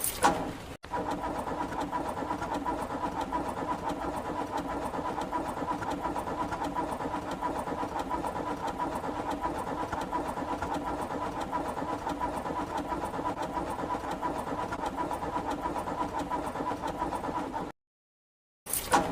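Car engine being cranked over by the starter with a steady rapid chatter, turning over without catching. The owner blames wet spark plugs after a stall in the rain. The cranking cuts off suddenly near the end and starts again about a second later.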